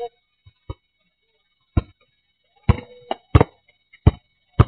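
Basketball dribbled on an asphalt court: single sharp bounces in an uneven rhythm, one every half second to a second, closer together after about two and a half seconds.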